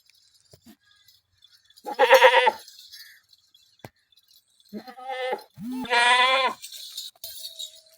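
Makhi Cheeni goats bleating: one call about two seconds in, then two more close together near the end, the last one the longest.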